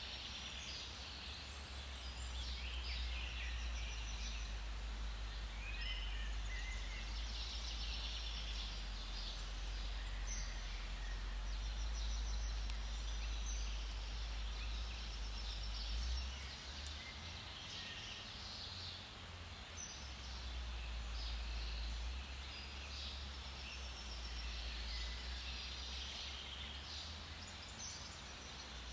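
Several forest birds singing and calling, in many short chirps and trills, over a steady low rumble.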